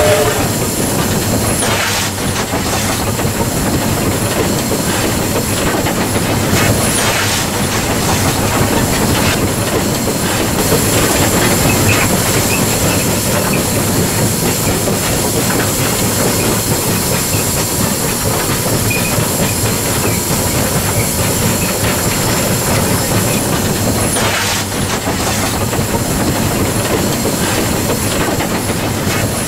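W-class steam locomotive running, heard from its footplate: a steady rush of exhaust, steam hiss and wheels on rail, broken by a few short sharp noises about 2, 7 and 24 seconds in.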